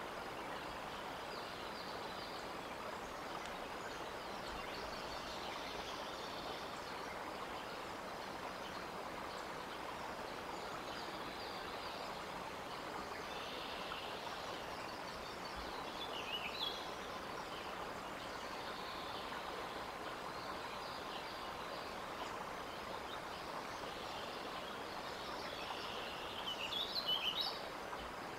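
Steady outdoor background hiss with short bird chirps: a couple about halfway through and a louder flurry of quick, high chirps near the end.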